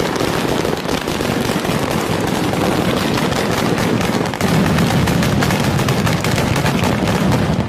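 A barrage of firecrackers exploding at ground level, a dense unbroken rattle of rapid bangs like machine-gun fire. It grows louder and heavier about four and a half seconds in.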